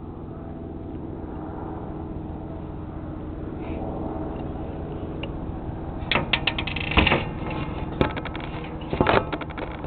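Small parts of a JG G36 airsoft rifle being handled while the flash hider's Allen screw is taken out: a steady low hum, then from about six seconds in a run of quick clicks and rattles with a few louder knocks.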